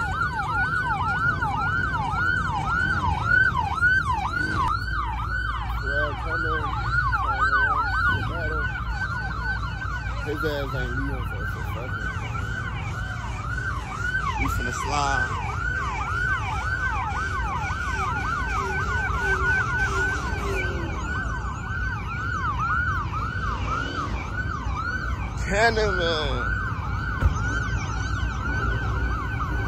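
Police car siren on a fast yelp: quick falling wails repeating several times a second, over a steady low rumble.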